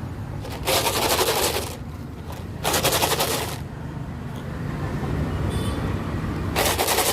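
Dry cat food rattling as its container is shaken, in three bursts of about a second each, several seconds apart.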